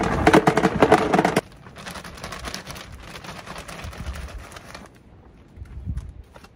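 Small rocks poured from a plastic bucket clatter into an empty plastic shop-vac tub in a dense rattle that stops abruptly about a second and a half in. Then comes a softer, steady hiss of potting soil pouring from its bag, and a dull thud near the end.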